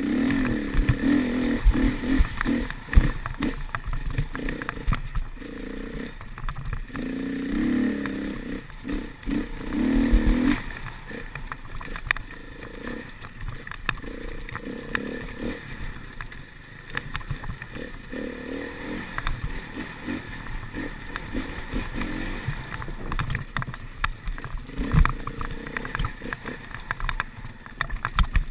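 Enduro dirt bike engine revving up and down as it is ridden hard along a bumpy trail, with knocks and rattles from the bike over the bumps. The engine is loudest in roughly the first ten seconds, then runs at lower revs.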